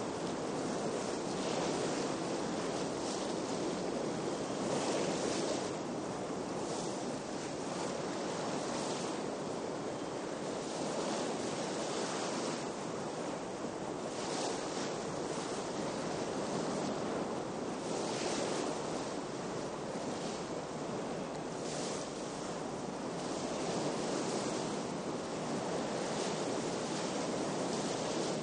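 Steady rush of wind and sea around a wooden brig sailing under full sail in a moderate breeze, with water hissing along the hull in surges every second or two.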